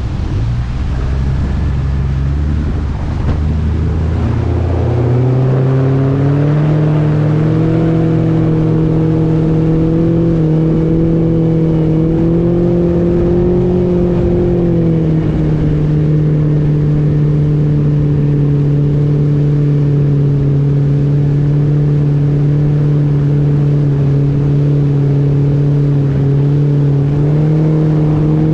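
Mercury 115 Pro XS four-stroke outboard motor accelerating hard about four seconds in, its pitch climbing, then running steadily at speed with small rises and dips in revs.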